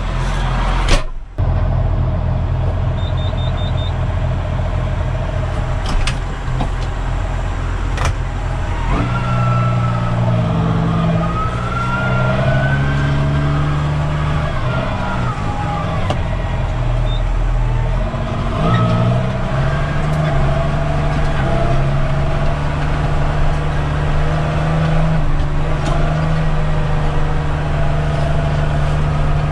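Case MX135 tractor's six-cylinder diesel engine heard from inside the cab, running steadily at low revs with a few clicks and short high beeps. About nine seconds in the revs rise with a climbing whine as the tractor drives off, then settle into a steady pulling note.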